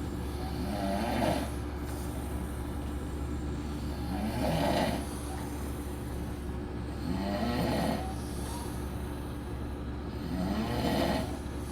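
A sleeping man snoring, about one snore every three to four seconds, four snores in all, each lasting about a second with a wavering pitch. A steady low hum runs underneath.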